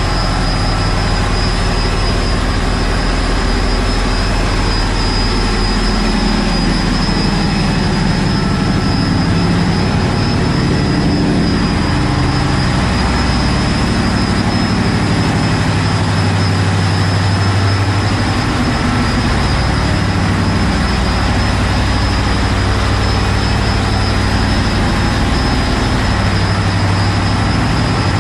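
Shrimp trawler's diesel engine running steadily in its engine room: a loud, even low drone with no change in speed.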